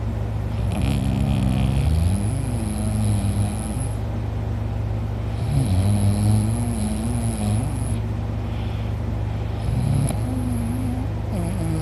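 A man snoring loudly and heavily in long, rough snores with a wavering pitch, three of them each lasting two to three seconds, and a fourth starting near the end.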